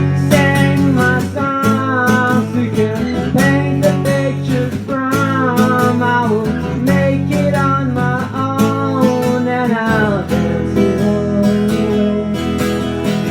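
Acoustic guitar strummed steadily, with a bending melody line over it that stops about ten seconds in, leaving the guitar playing alone.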